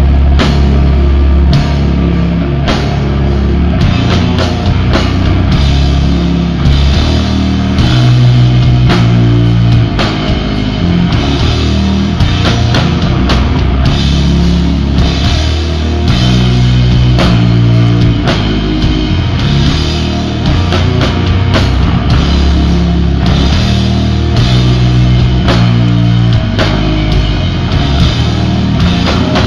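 Sludge metal band playing live and loud: heavily distorted electric guitar and bass riffs over a full drum kit.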